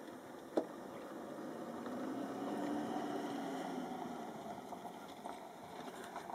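A motor engine humming, swelling up and fading away over a few seconds, as of a vehicle driving past. One sharp click about half a second in.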